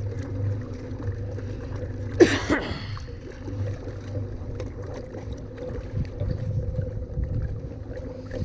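Kayak moving across choppy water: water washing along the hull under a steady low hum. One brief loud hit comes about two seconds in.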